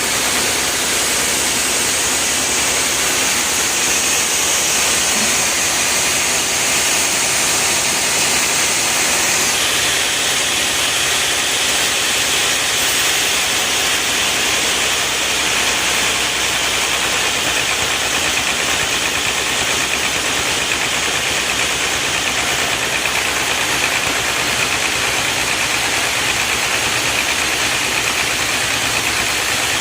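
Engine-driven machinery running steadily without a break; about ten seconds in, its high-pitched part drops lower.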